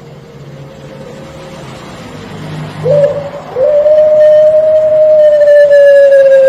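Puter pelung dove cooing: a short note about three seconds in, then one long, drawn-out coo held for nearly three seconds that falls slightly at the end.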